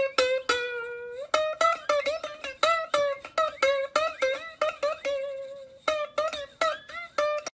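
Music: a quick melody of short plucked-string notes, several a second, with a longer held note about a second in and another just before six seconds.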